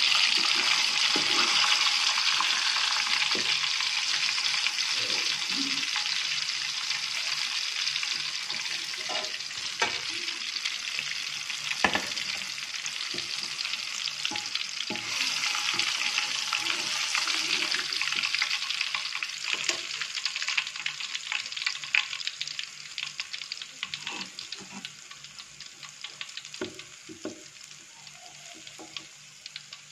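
Unbattered Ambon bananas deep-frying in hot oil in a pan: a steady sizzle that slowly dies down, with a metal spatula now and then clicking against the pan as the pieces are turned.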